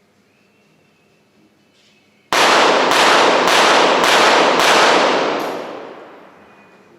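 .22 Short rapid-fire pistol firing a five-shot series in quick succession, the shots about half a second apart, starting a little over two seconds in. The shots echo and die away over about two seconds after the last one.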